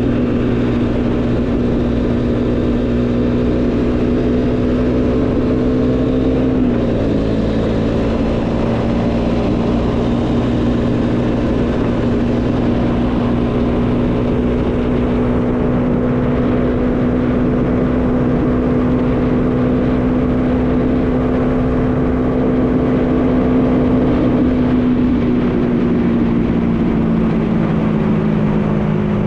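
Bajaj Dominar 400's single-cylinder engine running steadily at cruising speed, with wind noise over it. The engine pitch dips briefly about seven seconds in and falls near the end as the revs drop.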